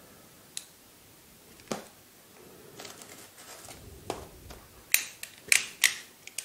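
Handling a small tape-wrapped cardboard box and a plastic snap-off utility knife on a tabletop: scattered sharp clicks and taps with a little scraping, then a quick cluster of four loud clicks about five seconds in.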